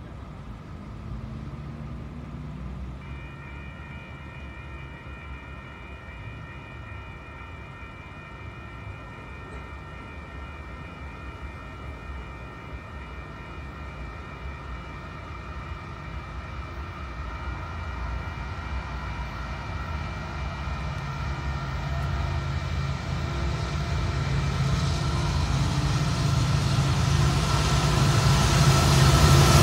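Union Pacific diesel locomotive approaching at the head of a freight train, its low engine rumble growing steadily louder until it is close at the end. A steady chord of several high tones is held unbroken from about three seconds in.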